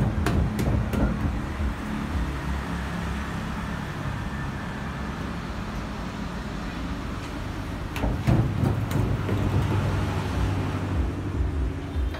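Steady low rumble of background traffic, with a few short knocks about eight seconds in.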